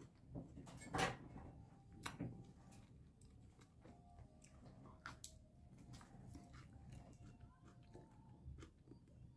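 A person biting into a firm, not fully ripe plum and chewing it: a sharp crunching bite about a second in, another about a second later, then soft, quiet chewing.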